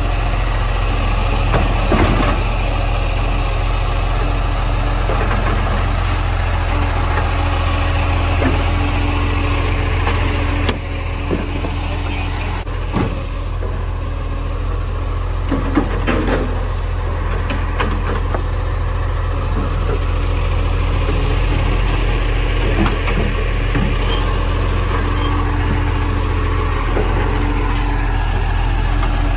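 Side-loader garbage truck's diesel engine running steadily while its hydraulic arm grabs, lifts and empties wheelie bins, with scattered sharp knocks and clunks from the bins and arm.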